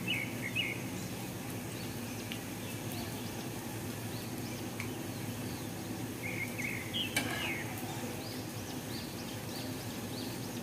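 Egg-dipped bread slices shallow-frying in oil with a steady sizzle, and a metal spatula clicking briefly against the pan about seven seconds in. Birds chirp a few times near the start and again about seven seconds in.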